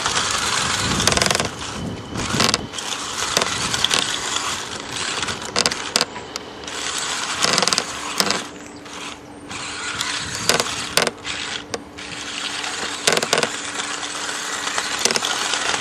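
Electric remote-control car running, its motor and gears whirring with frequent clicks and knocks. A steady hum joins from about halfway through.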